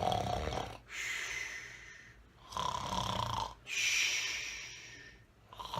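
A person snoring in long, regular breaths: a low rumbling snore on the in-breath followed by a long airy hiss on the out-breath, twice over, with the next snore starting near the end.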